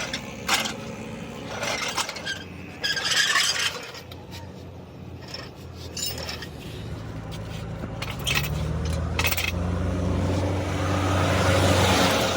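Metal knocks and a scrape from work on the truck's axle, then a vehicle engine running with a steady low hum that grows louder over the last few seconds.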